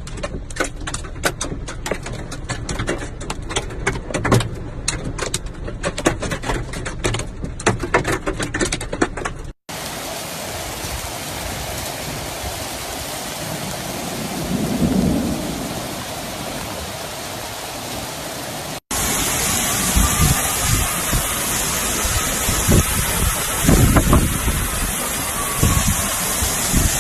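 Heavy rainstorm in three short takes. First, heard from inside a car, rain pelts the roof and windshield in dense sharp taps; then a steady downpour hisses on a street and sidewalk, with a low rumble about halfway through; then a louder, hissing downpour with a few low thumps near the end.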